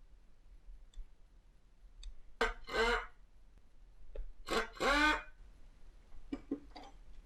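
Short squeaks in pairs, each starting with a sharp click: two loud pairs a couple of seconds apart, then a fainter pair near the end.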